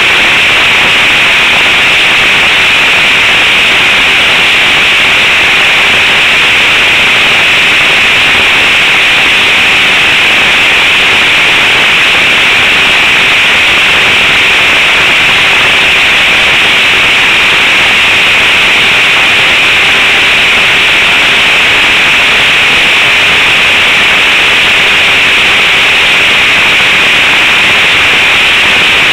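Model airplane's engine and spinning propeller, with the rush of air, heard close up from a camera mounted on the plane's nose: a loud, steady hissing drone with a faint steady hum underneath that does not change through the flight.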